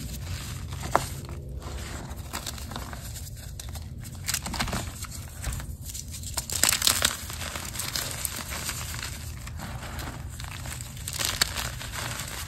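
Fingers crushing a dried block of reformed gym chalk, crunchy crumbling and crackling as it breaks up into powder. The loudest crunches come about six to seven seconds in.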